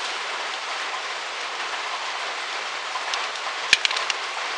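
Steady hiss throughout. A little over three and a half seconds in comes a sharp clack and then a few lighter clicks, as a screwdriver is put down on the tiled floor.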